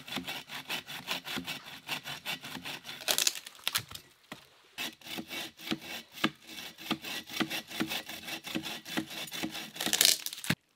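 Bow saw cutting through a log by hand in quick, rhythmic back-and-forth strokes. There is a brief pause about four seconds in, and the strokes are loudest just before they stop abruptly near the end.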